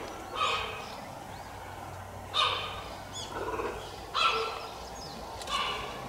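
Cheetah chirping: four short, high calls, one every second and a half to two seconds.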